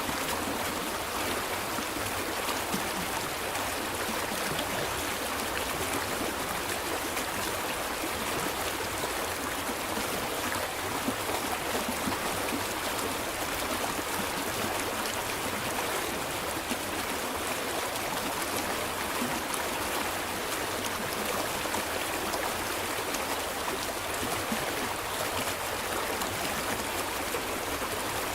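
Stream water flowing steadily over stones, a continuous babbling rush with small trickles and gurgles.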